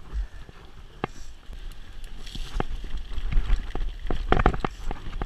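A mountain bike rattling over a rocky, wet trail: irregular knocks and clicks from the tyres hitting stones and the bike's parts shaking, over a low rumble. A burst of closely spaced knocks comes about four and a half seconds in.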